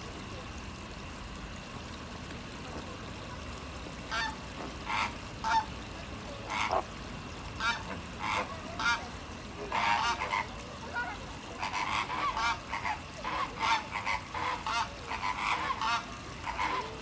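Flamingos honking: short calls, few at first and starting about four seconds in, then coming more often and overlapping in the second half.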